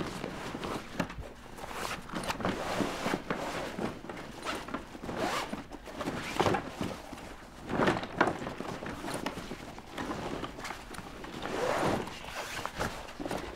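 Rustling, swishing and scraping of heavy fabric and a rolled folding-kayak skin being worked into a black travel bag, with irregular short thumps and scuffs from handling.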